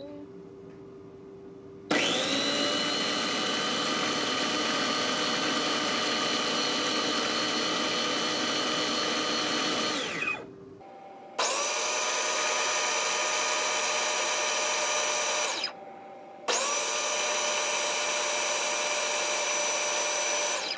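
Blender motor of a Homia Dansa baby food maker pureeing cooked butternut squash, run in three bursts of about eight, four and four seconds with short pauses between. The pitch rises briefly as the motor spins up at each start.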